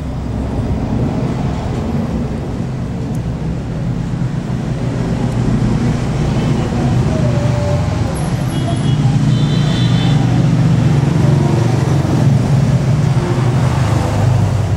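A steady low rumble of road traffic or vehicle engines, growing a little louder in the second half.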